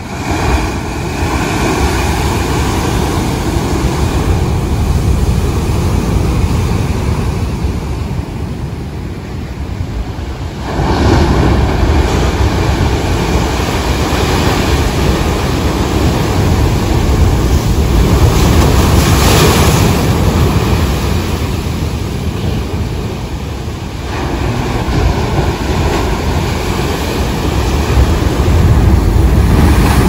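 Rough sea breaking against the concrete tetrapods of a breakwater: a continuous rush and rumble of surf that turns louder about ten seconds in, eases briefly later, then swells again near the end.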